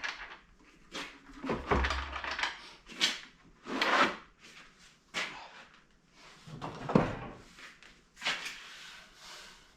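A string of knocks, clunks and scrapes as a wooden test leg is taken off a wood lathe and handled, with heavier thumps about two seconds in and again about seven seconds in.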